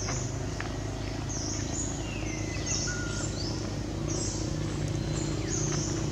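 Outdoor ambience: birds chirping, with a short high call repeating about once a second and a lower falling whistle about two seconds in, over a steady low hum.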